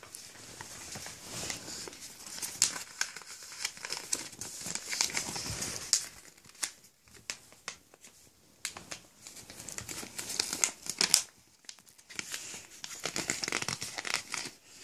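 A sheet of white paper being folded and creased by hand into an origami shape, crinkling and rustling in irregular bursts with a few sharp snaps and a couple of brief pauses.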